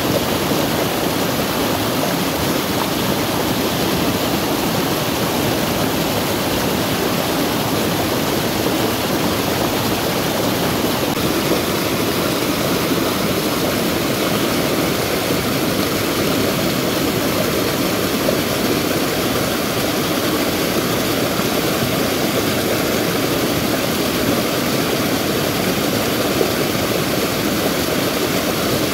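Rain-swollen, muddy stream rushing steadily down a small rocky cascade in flood.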